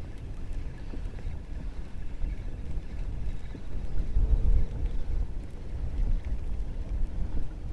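Wind buffeting the microphone, a steady low rumble with a stronger gust about four seconds in.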